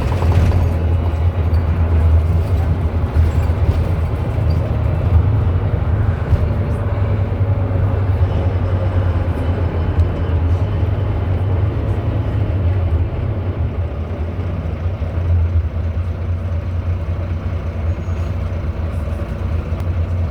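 Interior of a Volvo B9TL double-decker bus under way: the six-cylinder diesel and driveline give a steady low drone under road and cabin noise.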